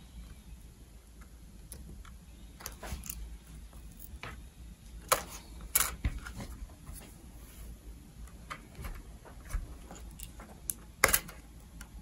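Plastic clicks and crackles as fingers pry at the edge of an ASUS MB16AMT portable monitor's casing, working its bezel clips loose. Sharper snaps come about five and six seconds in and again near the end.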